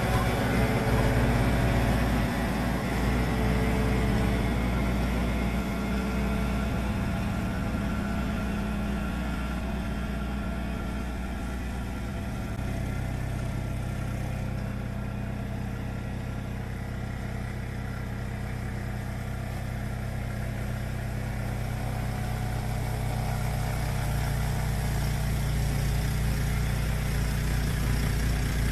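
Yamaha YT1070 crawler snowblower's engine running steadily, its note shifting slightly about twelve seconds in and its level dipping a little in the middle before rising again.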